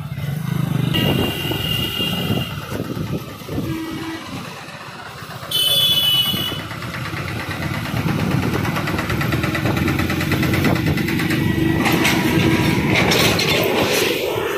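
Busy road traffic: vehicle engines running, with a short horn blast about a second in and a louder horn blast around six seconds in. Later a fully loaded pickup truck's engine runs steadily close ahead.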